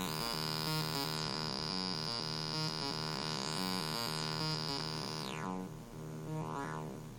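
Arduino-based Auduino granular synthesizer playing a looping, stepping note pattern driven by MIDI from a drum machine, a buzzy, hum-like electronic tone. A bright high tone holds over the pattern and then glides down about five seconds in as a knob is turned, followed by short rising-and-falling sweeps.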